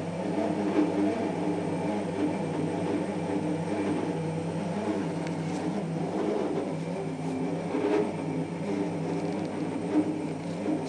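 Twelve-year-old Bosch washing machine running with a steady, rumbling drone, its pitch wavering slightly, with a few faint knocks.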